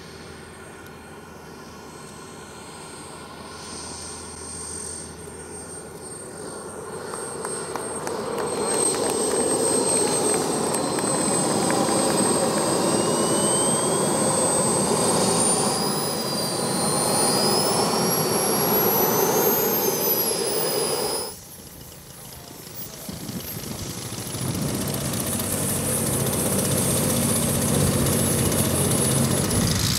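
Turbine jet engines of a large-scale RC Su-30 model whining, growing louder from about eight seconds in, with the whine's pitch rising and falling several times. After a sudden cut, a different model aircraft's engine runs and builds up.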